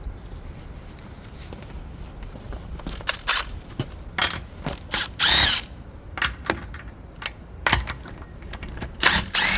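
Impact wrench run in a series of short bursts, spinning already-loosened lug nuts off the wheel studs. The two longest and loudest runs, about half a second each, come around the middle and near the end.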